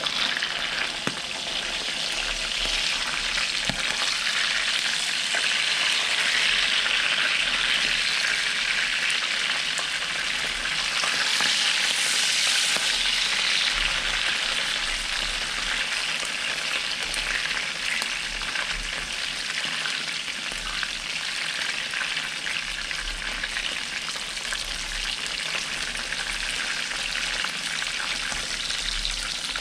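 Oil sizzling hard around two butterflied bangus (milkfish) pan-frying in a nonstick pan, with a couple of clicks of metal tongs against the pan as the fish are turned. The sizzle grows louder a few seconds in and eases off again after about ten seconds.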